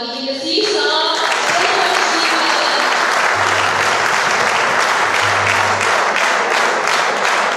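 Audience applauding steadily in dense clapping. Within the first second it swells over a held voice on the microphone that fades out.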